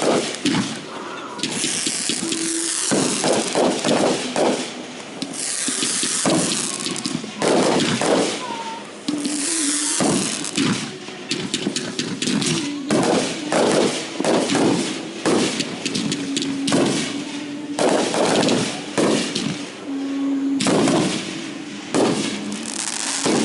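Consumer fireworks going off in quick succession throughout: sharp bangs and showers of crackling, one after another.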